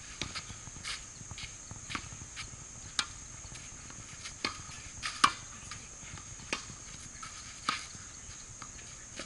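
Tennis balls struck by rackets and bouncing on a hard court during a rally: sharp pops about once a second, some much louder than others, over a steady high-pitched hiss.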